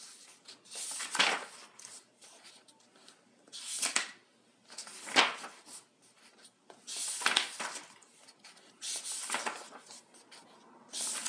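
Pages of a thick paperback problem book being turned one after another, paper rustling in a string of short swishes about every second or two.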